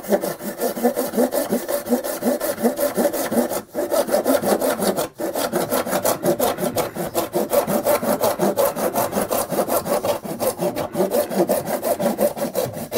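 Hand PVC saw cutting through the thick plastic 1.5-inch intake spigot of a Saniflo Sanicubic 2 pump unit, in quick, steady back-and-forth strokes with two brief pauses about 3.5 and 5 seconds in.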